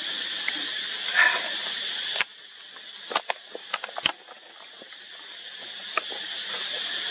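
Steady high-pitched insect drone that drops sharply about two seconds in and slowly builds back. A short call sounds about a second in, and several sharp clicks follow between two and six seconds.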